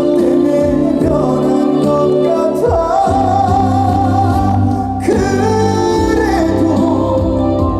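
Korean trot song performed live: singing over band accompaniment, with a long note held with vibrato from about three to six seconds in.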